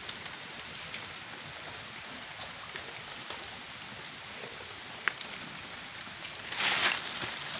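Steady hiss of light drizzle falling, with a few faint ticks and a brief louder rustle near the end.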